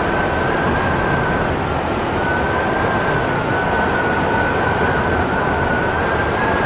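Strong wind of about 80 km/h, rushing steadily with a thin, high whistle over it.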